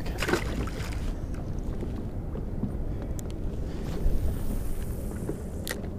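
Wind buffeting the microphone with a steady low rumble on an open boat. There is one sharp click a little before the end.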